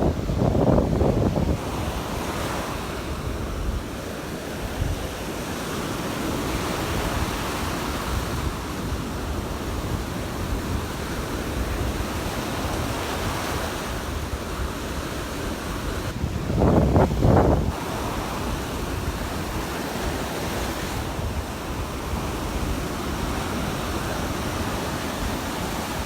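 Gulf of Mexico surf washing onto the beach, a steady rushing of waves, with wind rumbling on the microphone that swells in two louder gusts, about a second in and again about two-thirds of the way through.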